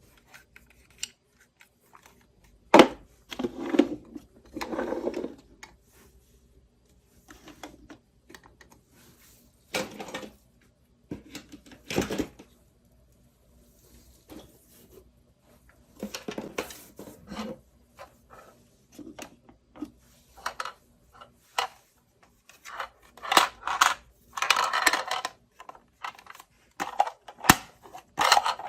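Miniature stainless-steel toy kitchenware being handled: small metal pots, pans and utensils clink and tap against each other at uneven intervals, mixed with short handling rustles.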